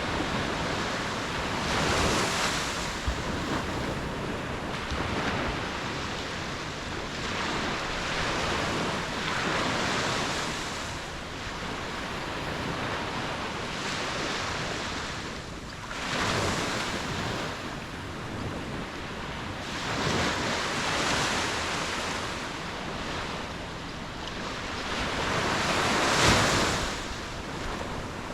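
Ocean waves breaking and washing ashore in steady surf, swelling louder every few seconds, with wind on the microphone.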